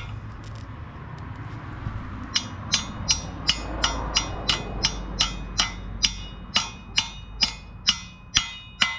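A ratchet wrench clicking in an even run, about three clicks a second, some with a short metallic ring, as the flexplate bolts are run onto a 4.8 LS V8's crankshaft. The clicking starts a little over two seconds in.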